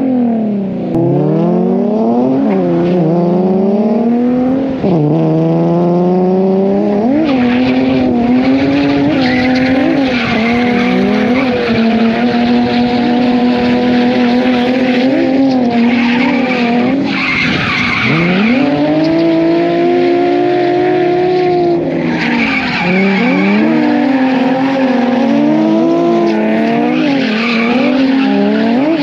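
Drift car engine revving hard through a drift run, held high for several seconds, dropping sharply once about two-thirds of the way in, then swinging up and down in quick short revs near the end, with tyres screeching throughout.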